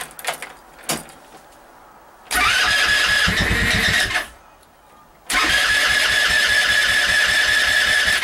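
Go-kart's small engine cranked on its electric starter in two attempts, a high starter whine over a fast even chugging, with a pause between them; it is a cold hard start and the engine does not catch. Two light clicks come before the first attempt.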